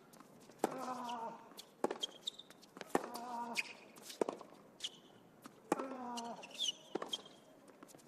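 Tennis rally on a hard court: racket strings hitting the ball back and forth about once a second, with a player's grunt on his shots about every two and a half seconds and brief squeaks of sneakers on the court.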